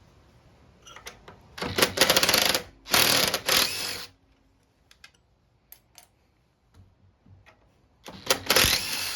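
Power drill-driver spinning out bolts on a Briggs & Stratton mower engine's housing in three short bursts, two close together and a third near the end.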